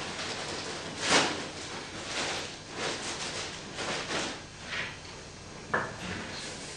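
Scattered rustling and scraping noises, a handful of short brushes of sound, the strongest about a second in, with a sharper one just before the end.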